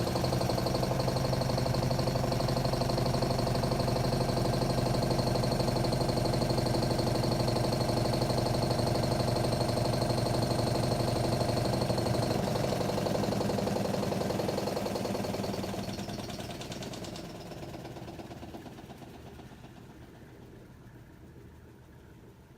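Panda PAN56MGW2 portable washing machine's motor running steadily with a hum and a high whine as the tub spins out the last of the water; about fourteen seconds in it winds down and fades away as the spin stops.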